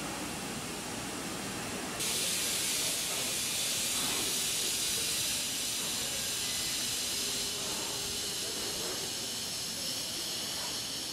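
Steady hiss from a Seibu 40000-series electric train standing at the platform, rising suddenly louder and brighter about two seconds in and holding steady after that.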